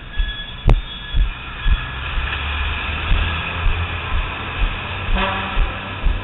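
A truck's engine and tyres rumbling through a concrete road tunnel, the noise swelling a couple of seconds in and echoing off the walls. Footsteps thump about twice a second throughout, with one sharp click just under a second in.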